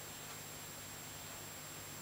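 Steady faint hiss with a low hum and a thin high-pitched tone underneath, and no distinct sounds: background room and recording noise.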